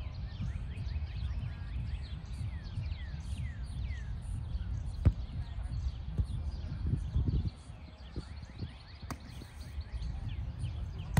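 Volleyball play: a few sharp knocks of the ball being struck, the loudest about five seconds in, among many short high chirps that fall in pitch, over a steady low rumble.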